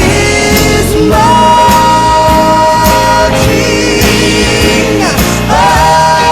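Background music: a song with a singer holding long notes with vibrato over a steady drum beat.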